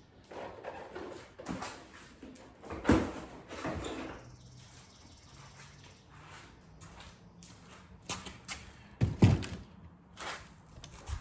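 Clunks, knocks and rattles of a Honda Grom motorcycle's seat being unlocked and pulled off to reach the battery. The loudest knock comes about three seconds in, and a pair of sharp knocks about nine seconds in.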